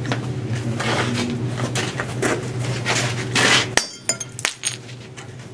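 A hammer strikes a steel pitcher held on the edge of a Portland stone block about four seconds in: one sharp, ringing metallic clink as a piece of stone is pitched off along the chamfer line, followed by a few lighter clicks.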